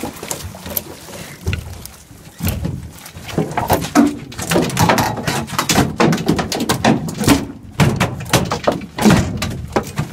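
A large halibut in a landing net being hauled over a boat's gunwale and thrashing on the deck: a dense run of irregular thumps, slaps and knocks, starting about two and a half seconds in.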